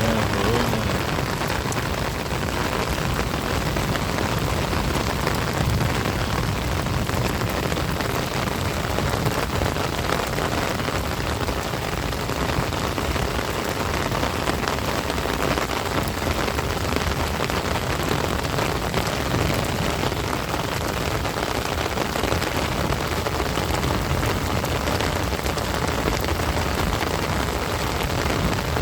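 Heavy rain falling steadily, an even unbroken wash of drops on surfaces.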